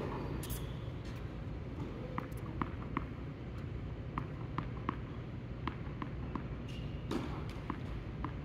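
Tennis court play sounds: a run of short, light taps about two or three a second, with two louder, sharper strikes about half a second in and again about seven seconds in, over a steady low hum.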